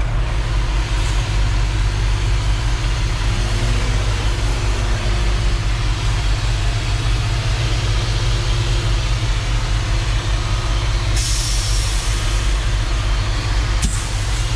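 Concrete mixer truck's diesel engine running steadily, with a burst of hissing about eleven seconds in and a sharp click near the end.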